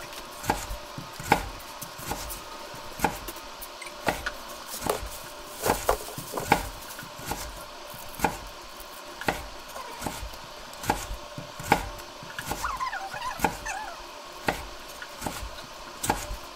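Kitchen knife chopping vegetables: single sharp chops at an unhurried, uneven pace, roughly one a second.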